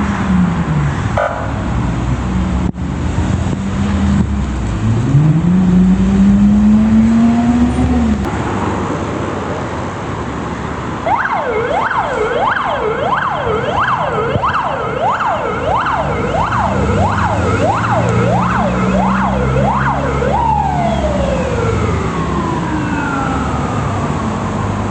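Ambulance siren sounding a fast yelp, sweeping up and down about twice a second, then switching near the end to a long falling tone. Traffic and engine noise run throughout and are loudest in the first third.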